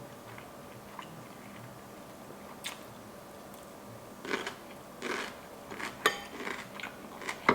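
Close-miked eating sounds: a person biting and chewing food, mostly quiet at first, then a run of short mouth noises and a sharp click from about four seconds in.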